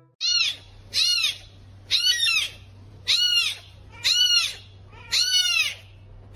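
Kitten meowing over and over: short, high mews that rise and fall in pitch, about one a second.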